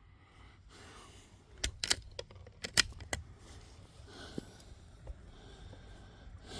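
Zastava MP22 .22 LR bolt-action rifle's bolt being worked: a quick series of sharp metallic clicks and clacks about two seconds in, lasting about a second and a half, as the spent case is extracted and the next round chambered.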